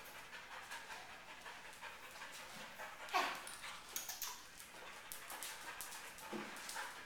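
A dog panting, with a short sound sliding down in pitch about three seconds in, the loudest moment, and a softer one a little after six seconds.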